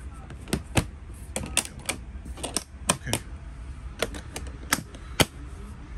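A run of irregular sharp clicks and light knocks, about a dozen spaced unevenly, as small hard parts are handled and fiddled with.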